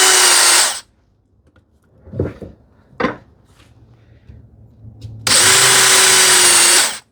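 Power drill running in two bursts of about a second and a half each, boring screw holes in small wooden turn buttons, with two light wooden knocks between the bursts.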